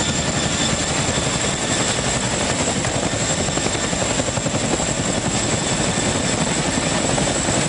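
CH-47 Chinook tandem-rotor helicopter running close by, a loud, steady rotor beat with a constant thin high whine over it.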